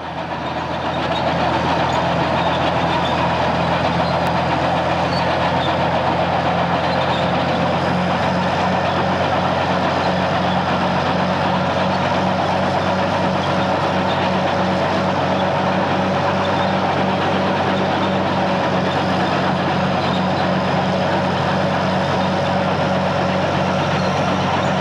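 Tank moving at a steady pace, its engine running with a low drone and its tracks squeaking and clanking. It fades in over about the first second and then holds steady.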